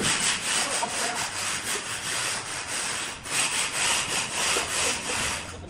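Repeated scraping strokes of a hand tool against the bark of a large log.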